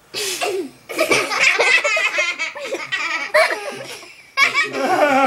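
People laughing hard, with high giggles and belly laughs: a short burst right at the start, then continuous laughter that breaks off briefly about four seconds in and starts up again.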